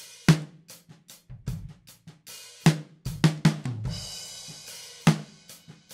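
Drum kit recorded through a PreSonus PX-1 large-diaphragm condenser used as a talkback/room mic, played back raw with no processing: a run of drum hits with a cymbal ringing through the middle. The sound keeps a lot of top end but also usable low end.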